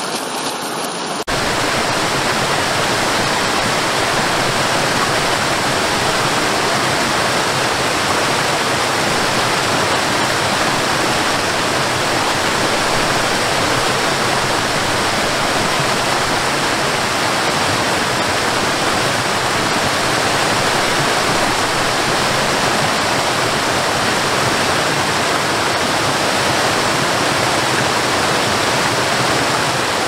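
Waterfall rushing over rock ledges: a steady, even roar of falling water. About a second in it switches abruptly from a thinner, smaller stream cascade to a louder, fuller waterfall.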